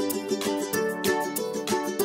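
Background music: a light plucked-string tune, ukulele or guitar-like, with quick picked notes.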